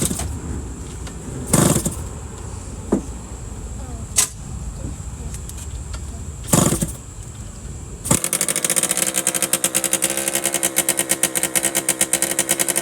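Freshly rebuilt Yamaha PW80 two-stroke single kicked over several times with the choke on, then catching about eight seconds in and running with a fast, even beat.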